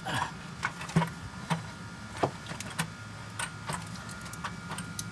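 Irregular light clicks and taps as the intake manifold assembly is worked into position on the engine, over a faint steady hum.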